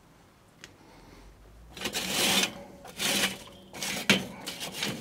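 Lit charcoal briquettes being shifted by a gloved hand in metal charcoal baskets inside a kettle grill: a run of irregular clinking, scraping rattles starting about two seconds in, after a single small click.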